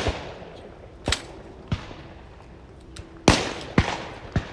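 12-gauge shotguns firing at clay targets: about five sharp shots of differing loudness. The loudest comes about three seconds in and has a long ringing tail, followed by two quicker, fainter shots.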